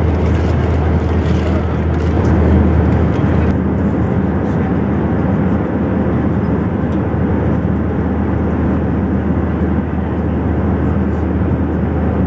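Steady cabin noise of an Airbus A321 airliner in cruise: the rush of air over the fuselage and the drone of its jet engines, with a deep low hum underneath. The noise shifts slightly, losing some of its hiss, about three and a half seconds in.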